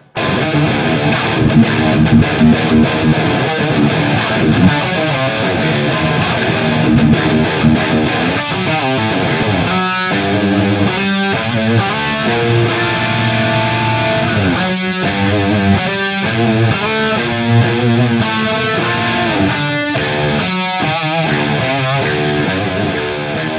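Electric guitar played through a Mesa/Boogie amplifier head and cabinet, running through a continuous riff. From about ten seconds in, the playing turns into short chopped chords broken by brief stops, with a few held notes between them.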